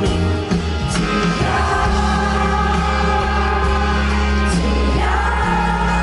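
Live band music: acoustic guitar over a steady bass, with long held notes sung by many voices together.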